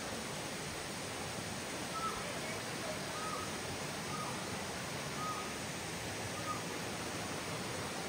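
Steady rush of a waterfall and the rapids below it: an even hiss. Five faint short chirps, about a second apart, sound over it.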